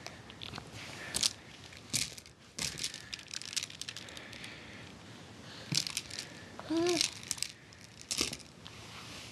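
Plastic baby link rings clacking and rattling in short bursts as they are dangled and shaken. A brief baby vocalization that arches up and down in pitch comes about seven seconds in.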